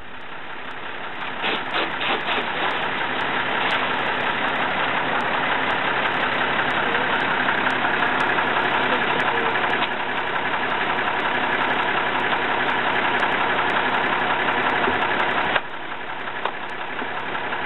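Pressure washer running steadily as its lance sprays water against the metal side of a coach. The noise builds over the first few seconds and drops suddenly near the end.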